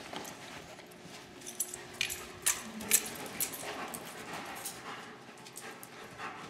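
Dogs' claws clicking and tapping on a hard floor as the dogs move about, with a few sharper clicks about two to three seconds in.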